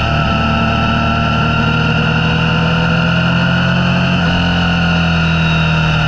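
Motorcycle engine running steadily under way, its pitch drifting slowly as the speed changes, with a steady rush of road and wind noise.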